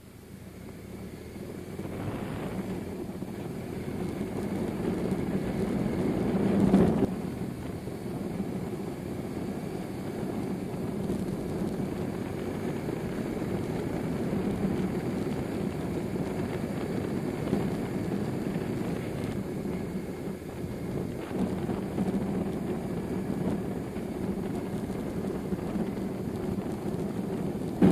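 BMW R1100 RS's 1085 cc flat-twin boxer engine running while the bike is ridden, mixed with wind rush on the onboard microphone. It fades in over the first few seconds and then holds steady, with a brief louder swell about seven seconds in.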